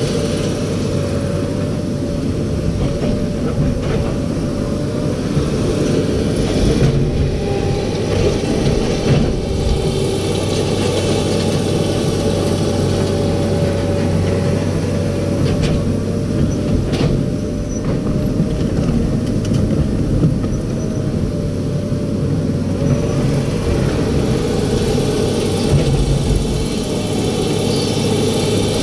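Komatsu PC200 hydraulic excavator's diesel engine running steadily under working load while the boom and bucket dig and move soil, heard from inside the cab. A few brief knocks sound now and then.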